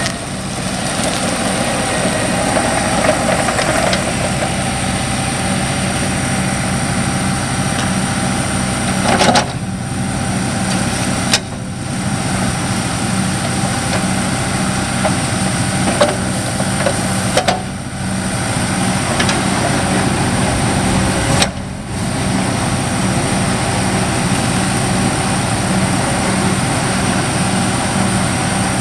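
Kubota four-cylinder turbo diesel engine of a Bobcat 435ZHS mini excavator running at a steady speed, with a few brief abrupt breaks.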